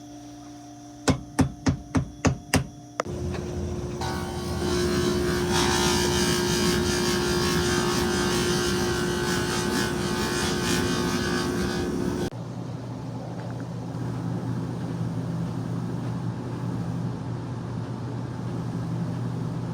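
Six sharp knocks in quick succession, then a motor-driven machine in a shoe repair shop runs steadily with a loud whirring hiss and a held tone. It cuts off abruptly, leaving a lower steady hum.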